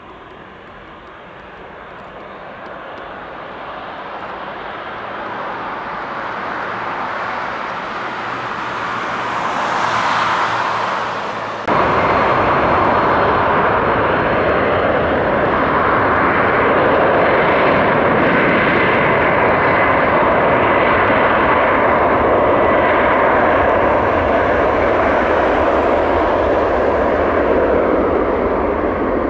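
Jet airliner engines: the noise builds steadily over the first ten seconds, then jumps abruptly about twelve seconds in to a steady, louder rumble with a faint high whine.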